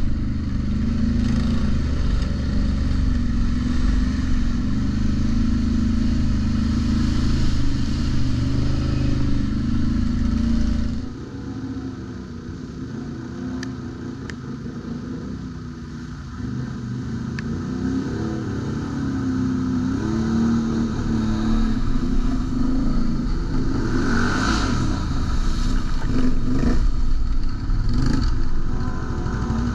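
ATV engine running while riding, the engine note easing off about eleven seconds in and building up again from about sixteen seconds.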